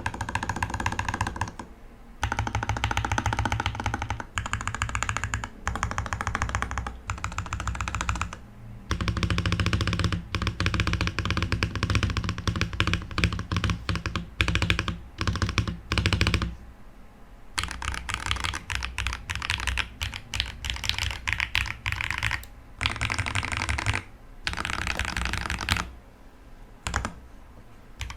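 Fast typing on a Feker FK68T 65% mechanical keyboard with linear JWK Pro Silver frankenstein switches (JWK Black housings, Gateron Pro Silver stems), Aifei Mecha-01 keycaps, lubed stabilisers and a tape mod. Dense runs of keystrokes come in bursts of a few seconds with short pauses between them.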